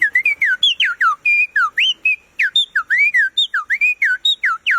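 A man whistling an imitation of a turpial's song: a quick, continuous run of clear, slurred whistled notes, some sliding down and some sliding up, about four or five a second.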